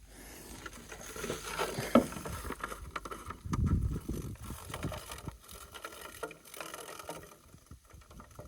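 Rustling and handling noise with scattered clicks and knocks, and a low rumble about three and a half seconds in.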